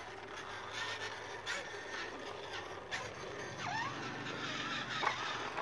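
Battery-powered toy ride-on motorbike running, its small electric motor and gearbox whirring steadily, with a few light clicks and short chirping tones over it.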